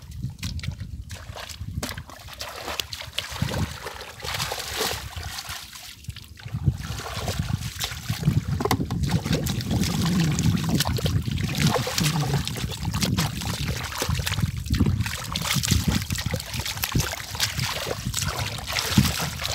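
Wet mud and shallow muddy water squelching and splashing as hands dig and churn through a flooded paddy field, a little louder from about a third of the way in.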